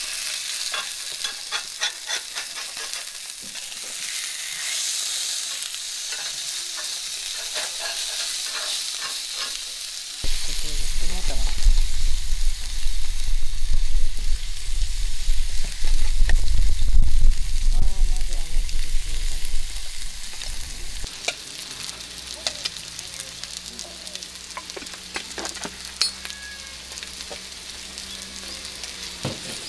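Salmon fillets sizzling in a cast-iron griddle pan, then butter corn frying beside them, with a metal spatula stirring and scraping the corn near the end. A low rumble comes in about ten seconds in and drops away about ten seconds later.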